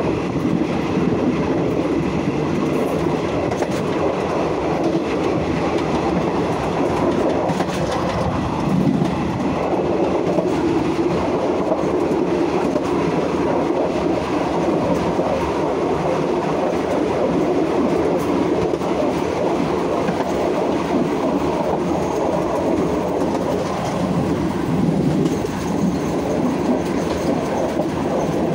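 Passenger train running on metre-gauge track, heard from the rear of the last carriage: a steady rumble of wheels on rail, with the occasional clack of wheels over rail joints.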